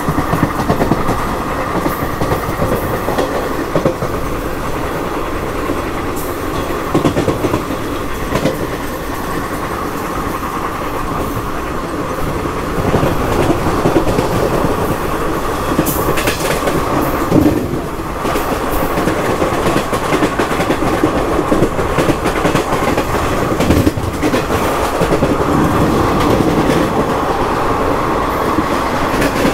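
Passenger train running along the track: a steady rumble with the clatter of wheels on rails, and a few sharper knocks about 16, 17 and 24 seconds in.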